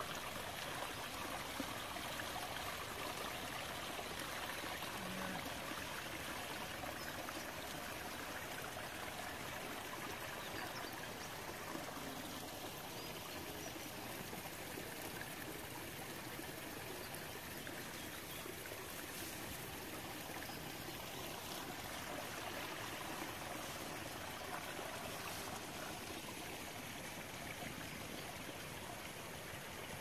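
Steady rushing of a small stream flowing over rocks.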